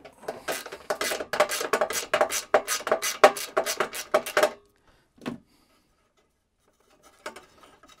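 Quick run of metallic clicks and clinks for about four and a half seconds as the small gas orifice fitting of a Suburban RV furnace is worked loose and taken apart by hand, then a single knock about five seconds in and faint handling near the end.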